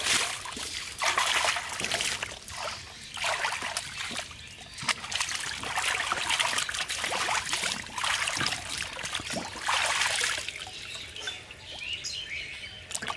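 Water splashing as whole raw chickens are tipped from a metal platter into a basin of water, then sloshing and dribbling as the birds are washed by hand and lifted out dripping. The loudest splash comes right at the start, followed by irregular bursts of splashing.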